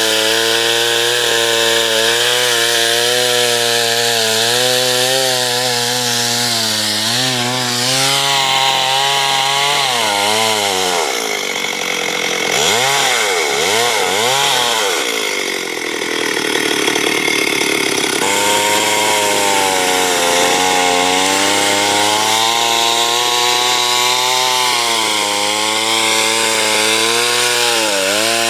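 Chainsaw running at high revs while cutting a big tree. About ten seconds in, its pitch drops and swings up and down several times. It then settles back to a steady high pitch.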